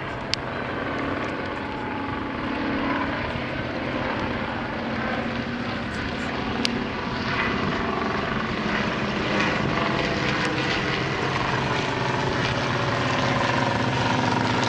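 Piston engines and propellers of World War One replica biplanes droning overhead, a steady hum that slowly grows louder.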